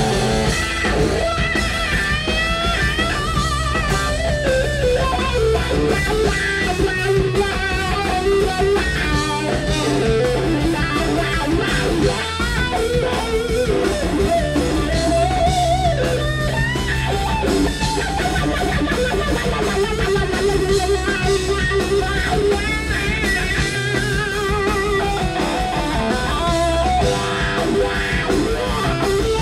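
Live alternative rock band playing loud: an electric guitar lead with bending, wavering notes over drums, bass and rhythm guitar, played through Marshall amplifiers.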